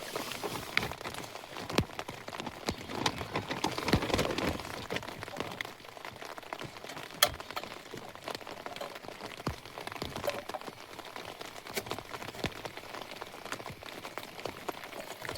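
Rain falling on the nylon of a tent, heard from inside: a steady hiss of rain with many irregular drop ticks, a few sharper ones standing out.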